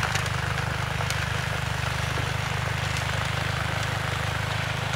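Snowblower engine running steadily as it clears snow.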